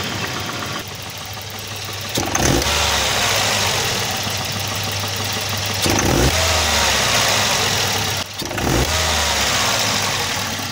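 Volvo B230F four-cylinder engine idling and blipped three times, the revs rising and falling each time. The owner says a pinging rattle comes in as the throttle first opens: detonation that he puts down to ignition timing set too far advanced.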